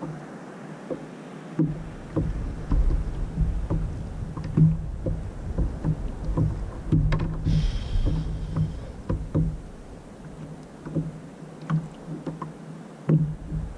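Sea water slapping and knocking against a plastic kayak hull in irregular bursts, over a low rumble of wind on the microphone. About seven and a half seconds in there is a brief thin, high whine.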